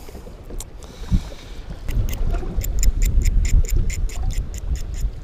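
Fishing reel being cranked on the retrieve, ticking rapidly and evenly at about five clicks a second from about two seconds in, over a low rumble of wind on the microphone. A single knock comes about a second in.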